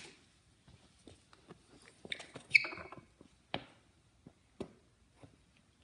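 Kick scooter knocking and rattling on a hard indoor floor as it is bunny-hopped: a cluster of clatter with a sharp hit about two and a half seconds in, then single knocks about a second apart.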